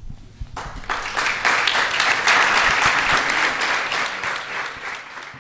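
Audience applauding: a dense patter of many hands clapping that swells about a second in, holds, then thins out near the end.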